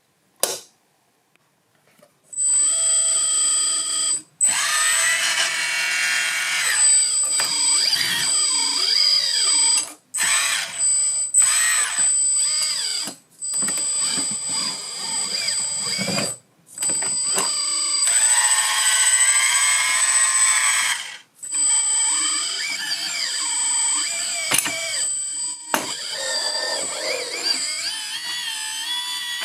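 Electric hydraulic pump motor of a full-metal RC excavator whining in long spells as it works the hydraulics. It cuts out briefly several times, and wavering tones shift beneath the high steady whine.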